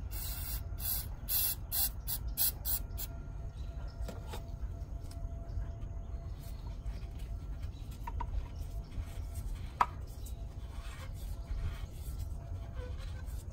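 Aerosol can of brake cleaner spraying in a quick series of short spurts onto a paper towel during the first three seconds. Afterwards, faint rubbing and light clicks as the towel is worked around inside the injector bore, with one sharp click near 10 seconds.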